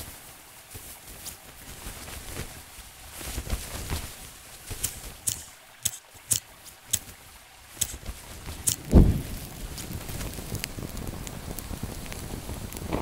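A campfire being lit by hand in a pile of sticks and newspaper: a run of sharp strikes, then one loud low thump about nine seconds in as it catches, followed by a steady crackling hiss of burning paper and twigs.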